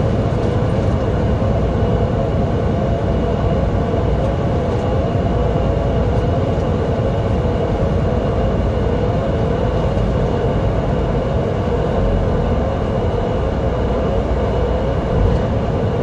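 Steady engine drone and road noise inside a vehicle cruising on a snowy highway, with a hum that wavers slowly up and down in pitch.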